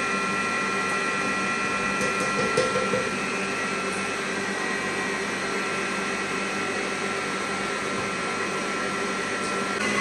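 Electric stand mixer running steadily with a motor whine, mixing cake batter as the last of the flour goes in. A few light knocks about two seconds in, and the whine shifts in pitch near the end.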